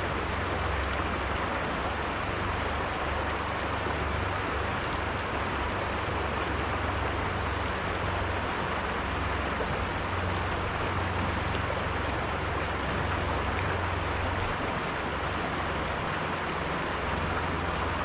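River water flowing: a steady, even rush with a low rumble underneath.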